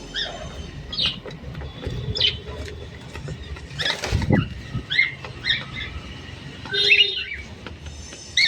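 Cockatiels chirping: a string of short, repeated calls, with a brief rustling burst, likely wings, about four seconds in.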